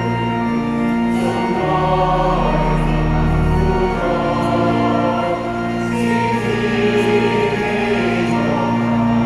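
Mixed choir of men and women singing a hymn in harmony, holding long sustained notes.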